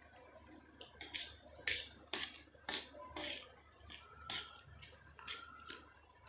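Close-miked eating of spicy Maggi noodles: a run of short, wet chewing and smacking sounds, about two a second, starting about a second in.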